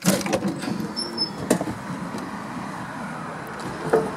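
Motorhome entry door opening, which lets in a steady wash of outdoor background noise, with a couple of sharp knocks from stepping out.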